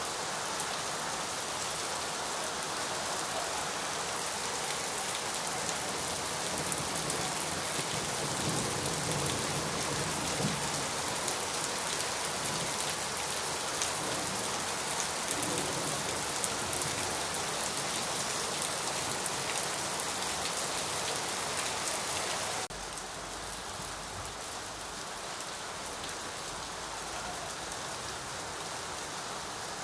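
Steady rain falling, a dense hiss of many drops. About three-quarters of the way through, the sound drops abruptly to a slightly quieter, different-sounding rain.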